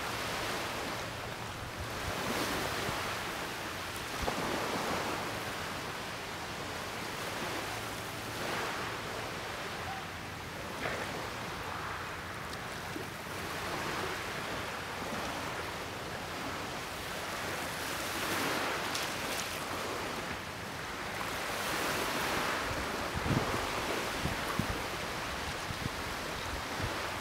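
Small waves washing against the shore in swells every few seconds, over a steady wind noise. A few low thumps of wind hit the microphone near the end.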